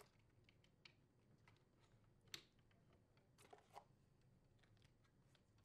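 Near silence with a few faint, short clicks of small plastic wire connectors being handled, the sharpest about two seconds in and two more close together about a second later.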